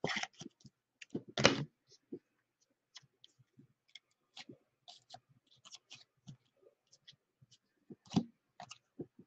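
Baseball trading cards being flipped and slid through by hand: a run of soft clicks and card-edge flicks, with louder brushes about a second and a half in and again near the end.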